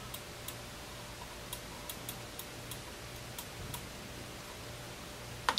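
Rotary data-selector knob on a Sensor-1 planter population monitor being turned, its detents giving about ten faint, irregularly spaced ticks, with a sharper click near the end.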